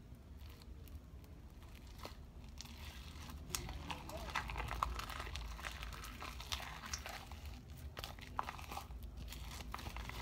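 Sticky slime being kneaded and pulled by hand in a clear plastic container: crinkling plastic and a run of crackles and sharp clicks, which gets busier and louder about three and a half seconds in.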